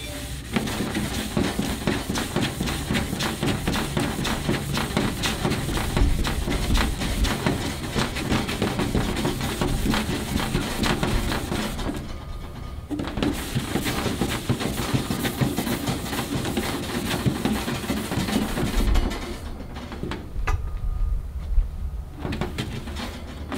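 A red Scotch-Brite abrasive pad scrubbing hard over a stainless steel grill body in quick back-and-forth strokes, a loud rasping scour that works at caked-on residue. The scrubbing breaks off briefly about halfway through and stops a few seconds before the end.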